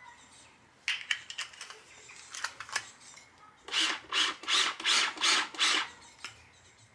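Battery-free kitchen scale being recharged by hand-spinning its winder: a few separate clicks, then a quick run of about six spinning strokes.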